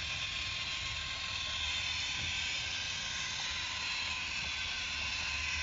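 Battery-powered Plarail Tokyo Monorail 3000 series toy train running along its plastic elevated track: the motor and gears whirring steadily, with a low rumble underneath.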